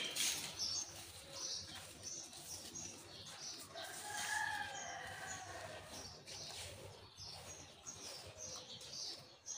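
Small birds chirping over and over, with one longer drawn-out call about four seconds in, and a brief knock at the very start.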